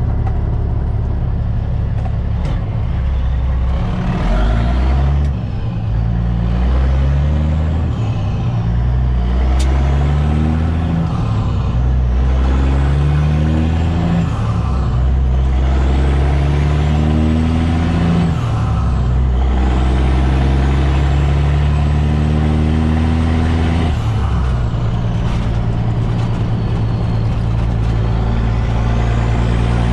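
Kenworth T800's Caterpillar C-15 diesel heard from inside the cab, pulling away and climbing through the gears: the revs rise, then drop back at each upshift, several times over.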